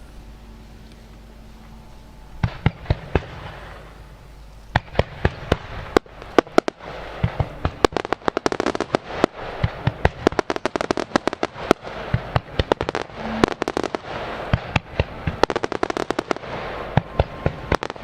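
Fireworks finale: a few sharp aerial shell bursts about two and a half seconds in, then from about five seconds a dense, rapid barrage of bangs with crackling in between.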